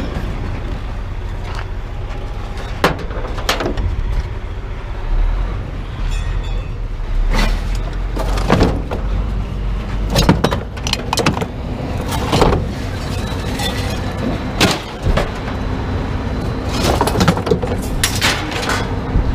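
Scrap metal clanking and banging in irregular knocks as loose pieces are pulled off a truck and dropped, over the steady low rumble of an engine running.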